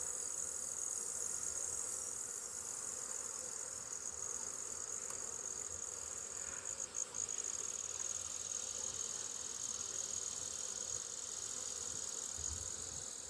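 Steady, high-pitched, unbroken chirring of singing insects such as crickets, over a faint low hum of honeybees around an open hive.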